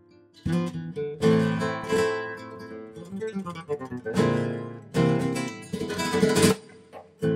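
Background music: acoustic guitar playing a run of strummed and plucked chords, with short pauses between phrases.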